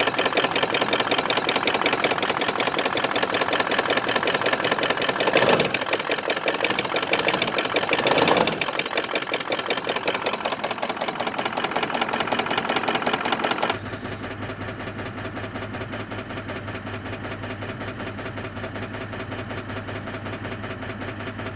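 Toyota 1VD-FTV V8 turbodiesel running with a fast, even knocking clatter, which the owner is unsure is a mechanical knock or a faulty injector; it came on after the engine stalled and was only just restarted following a fuel filter change. It swells briefly twice, and about two thirds of the way through it turns suddenly quieter and duller with a steady low hum.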